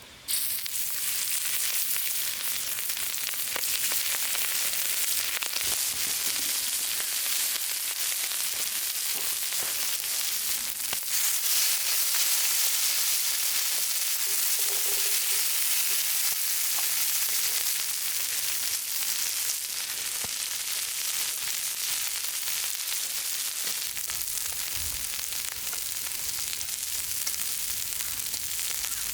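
Food sizzling and frying in hot fat on a hot cooking surface, a steady hiss that starts abruptly just after the start.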